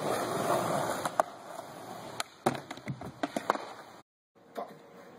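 Skateboard wheels rolling on concrete, then a run of sharp clacks and knocks as the board and rider hit a wooden box ledge in a fall.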